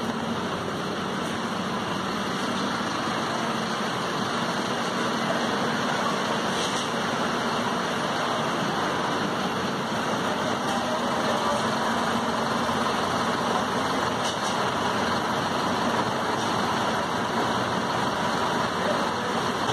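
Steady city street traffic: engines of buses and cars running in a continuous noisy hum.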